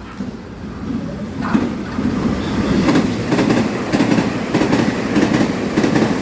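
Electric multiple-unit train coming through the station. It grows louder over the first few seconds, then its wheels clatter over the rail joints in a quick, even rhythm.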